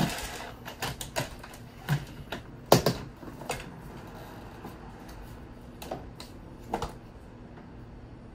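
Plastic parts of a Dyson DC21 canister vacuum clicking and clacking as they are unclipped and handled during disassembly. The clicks and knocks are irregular, with the loudest knock nearly three seconds in, and they thin out to a few after about four seconds.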